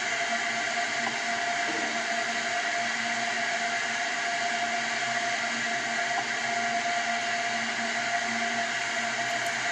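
Steady hiss with a constant hum tone on the launch-control audio feed, unchanging between countdown callouts.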